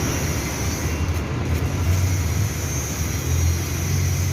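A motor vehicle's engine running steadily, with an even road or wind noise over it.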